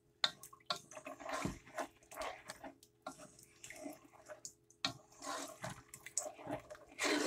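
A spoon stirring a wine-and-broth sauce in a pot: irregular sloshing of the liquid and short scrapes across the pot's bottom, working up the flour and browned bits stuck there.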